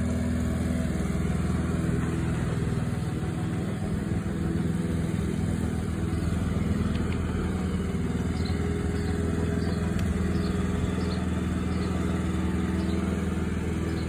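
Mountfield SP535 HW petrol self-propelled lawn mower running steadily while cutting grass, its engine holding an even note.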